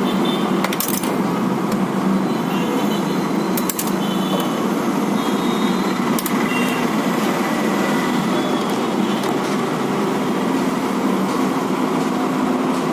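Steady rumble of road traffic in the background, with a few sharp clicks about one, four and six seconds in.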